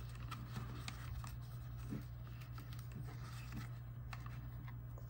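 Faint scattered clicks and rustles of a thermal label paper roll being rolled back by hand and straightened in a small label printer, over a steady low hum.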